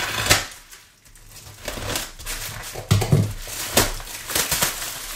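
Plastic shipping mailer being slit open with a knife and then pulled apart by hand: crinkling and tearing plastic in a series of short bursts.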